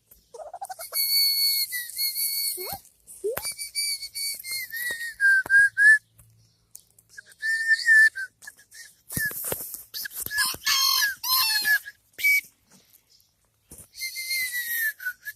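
A series of high whistled notes, several held for a second or more and dipping in pitch at the end, with a quick warbling run about ten seconds in.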